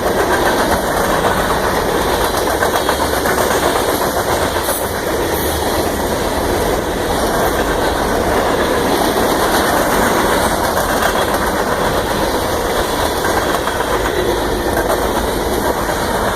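Union Pacific local train rolling past: a steady rumble and rattle of wheels on the rails and diesel locomotive engines, with no horn sounding.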